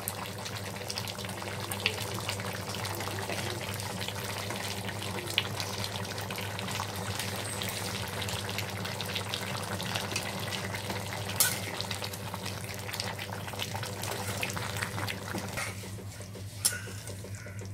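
Chicken and potato curry sizzling and bubbling in a metal pan, with steady fine crackling and popping over a low steady hum. Near the end it turns quieter, with a couple of sharp clicks.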